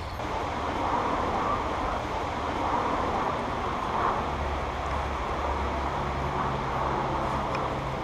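Steady outdoor rushing background noise, with a low steady hum coming in about halfway through.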